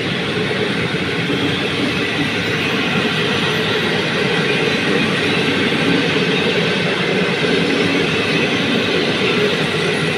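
PKP Intercity passenger coaches running past, a steady loud noise of wheels on rails; the last coach goes by near the end.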